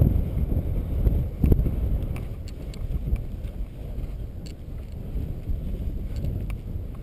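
Dirt bike ridden slowly over a loose gravel slope: a low rumble of engine and wind buffeting on the mounted camera's microphone, with scattered small clicks and rattles.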